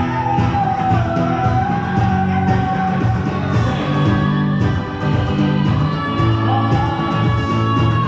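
Live contra dance tune played on fiddle and guitar: a fiddle carries the melody in long, sliding notes over guitar keeping a steady beat.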